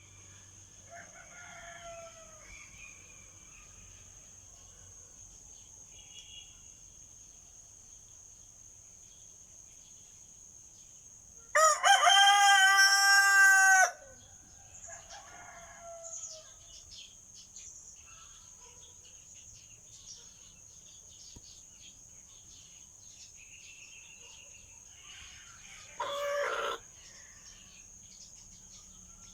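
Rooster crowing: one long, loud cock-a-doodle-doo lasting about two seconds midway through, with fainter crowing before and after and a shorter loud call near the end. A steady high-pitched insect drone runs underneath.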